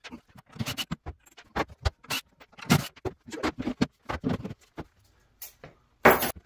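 Kitchen cabinet shelf boards being lifted out and stacked on a countertop: a run of irregular knocks, taps and short scrapes, with a louder clatter of boards near the end.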